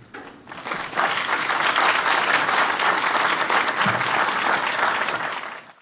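Audience applauding, swelling in about half a second in, holding steady, and dying away near the end.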